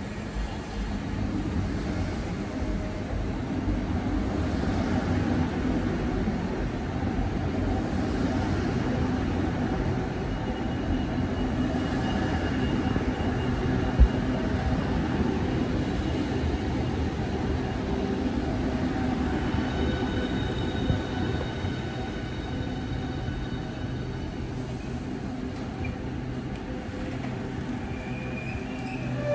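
Class 395 Javelin electric multiple unit running slowly into a station platform: a steady rumble of wheels on rail with a motor hum, and a single sharp click about halfway. Thin high squealing tones join in the second half as it slows.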